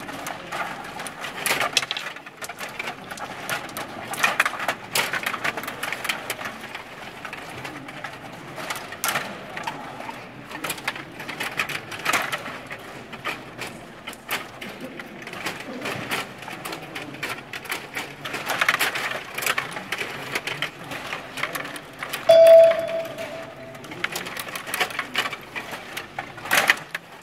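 Table hockey game in play: irregular clicking and clattering of the rods, spinning player figures and puck on the plastic Stiga table. About 22 seconds in, a brief steady tone is held for under two seconds.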